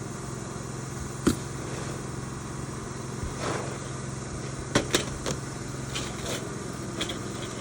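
Shingle repair work on a roof: a few scattered knocks and taps of tools and shingles over a steady low engine-like hum.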